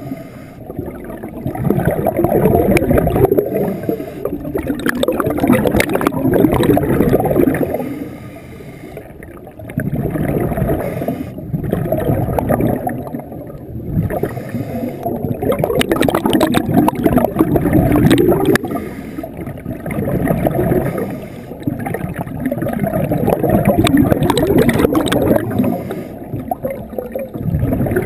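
Muffled underwater bubbling and gurgling, swelling and fading in waves every few seconds.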